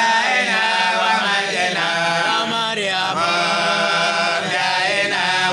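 A man chanting a devotional song into a microphone, in long wavering melodic lines held without a break.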